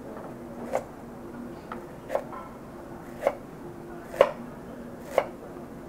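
Chef's knife cutting through a galangal root onto a wooden cutting board: five separate chops about a second apart, the fourth the loudest.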